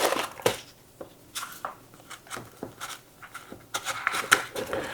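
Small pocket tools and keychain items being handled: scattered light clicks and rustles, with the sharpest click right at the start.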